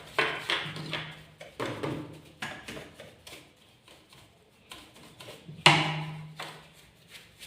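A brush knocking and scraping against the metal underside of a tilted-up sewing machine as it is cleaned. There are several sharp clatters with a short low ring after each, the loudest about five and a half seconds in, and quieter scrubbing between them.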